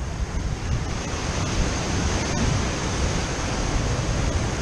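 Ocean waves washing steadily, with wind buffeting the microphone in a low, uneven rumble.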